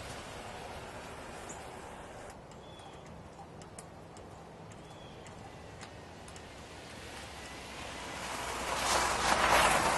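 Outdoor background noise with a couple of faint bird chirps, then a rushing noise that swells up loudly over the last few seconds.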